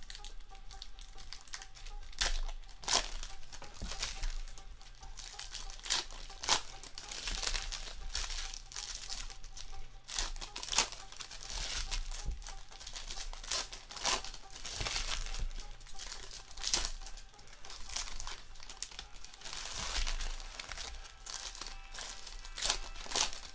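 Foil wrappers of football trading-card packs being torn open and crinkled by hand, in repeated sharp rips and crackles.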